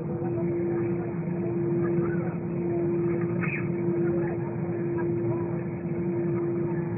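Steady drone of an Airbus A320 heard from inside the cabin, a constant hum with one steady tone, not rising or falling, with faint voices underneath.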